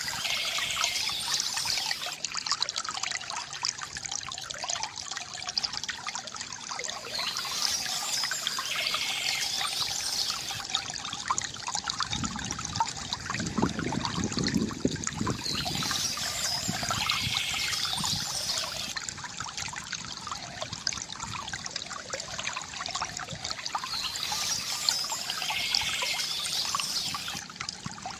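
Water trickling and splashing steadily from a bamboo fountain, with a deeper gurgle in the middle. A brighter, higher sound comes and goes four times, about every eight or nine seconds.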